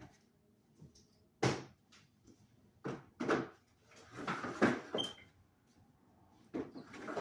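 A series of irregular knocks and clatters, each short and sharp, coming in uneven clusters.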